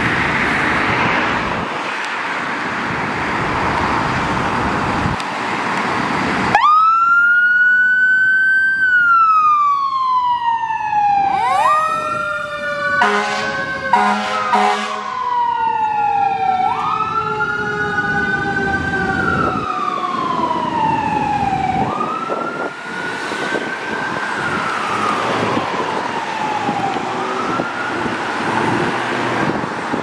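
2021 Spartan MetroStar fire engine pulling out with its engine running; about six and a half seconds in its wail siren starts, rising and falling in slow cycles about every five seconds. Around halfway there are several short air horn blasts, with the lower whine of the Q siren sliding slowly down beneath the wail.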